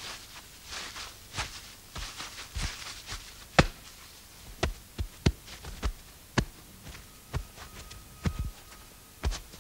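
Irregular sharp taps and knocks, about one or two a second, with the loudest about a third of the way in, and soft rustling during the first few seconds.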